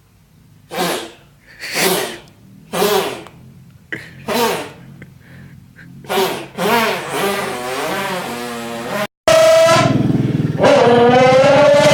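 A person imitating car engine and turbo sounds with his mouth. First come a string of short breathy bursts about a second apart, then a warbling pitch glide, and after a sudden cut a loud, long held tone.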